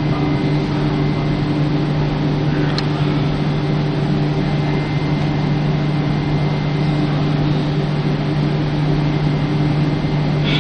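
Steady interior noise of a Hamburg S-Bahn BR 471 electric multiple-unit car: a constant low hum with a couple of higher tones over a rushing noise and uneven low rumble.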